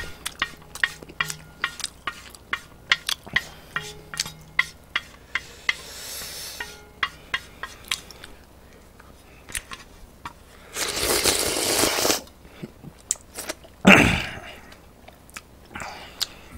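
Close-miked eating of instant ramen: repeated wet chewing and smacking sounds, then a long loud slurp of noodles about eleven seconds in, followed about three seconds later by a single sharp, loud burst.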